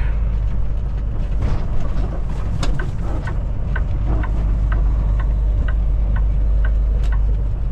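Semi truck's engine and road noise rumbling steadily inside the cab, with a light, even ticking about three times a second from about a second and a half in.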